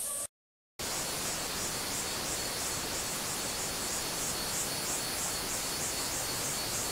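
Mountain stream rushing over rocks: a steady wash of water noise that starts after a brief dropout of silence about half a second in. A faint high pulsing sound, about three pulses a second, runs over it.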